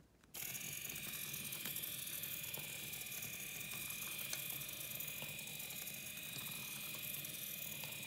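The Maqueen robot car's small geared DC drive motors running, a steady high-pitched whine with gear buzz that starts suddenly about a third of a second in as the car turns on command from the IR remote.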